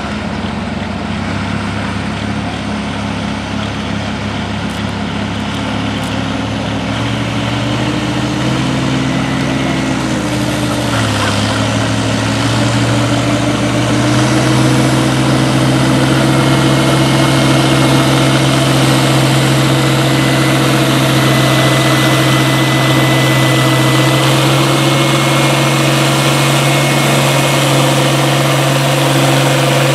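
International Harvester Turbo farm tractor's diesel engine running hooked to a pulling sled, then going up in pitch and growing louder about halfway through as it pulls the sled down the track. The engine then holds steady under load.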